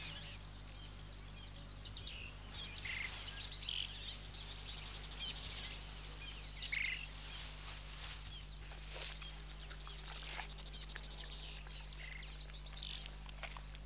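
Insects trilling in a high, rapidly pulsing buzz that comes in after a couple of seconds, swells and stops suddenly near the end, with scattered short bird chirps throughout.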